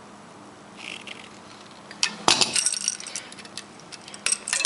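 Light metallic clicks and clinks of hand tools and small electrical parts being handled while a 240-volt receptacle is wired, in a scattered run starting about two seconds in.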